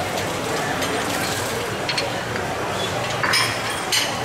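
Steady background ambience with faint murmured voices, and two short clinks near the end.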